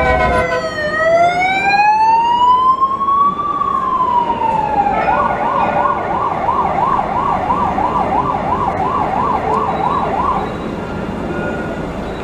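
Emergency vehicle siren: a slow wail sweeping down and back up, then from about five seconds in a fast warble at about two and a half cycles a second, which stops near the end.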